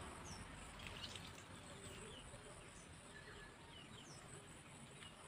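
Near silence, with a few faint, short, high bird chirps scattered through it.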